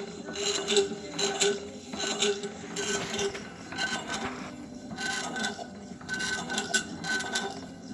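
Old hand-crank coffee grinder being worked by hand, its metal mechanism giving repeated clicks and rattles in an uneven rhythm, about two a second.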